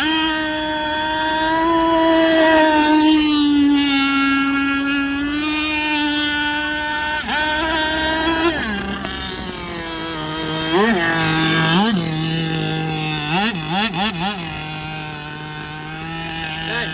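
Zenoah 32cc two-stroke petrol engine of an RC speedboat running at high revs on the water, its pitch wavering slightly. From about eight seconds in, the revs dip and jump back sharply several times, four in quick succession near the end, with the engine held at a lower pitch in between.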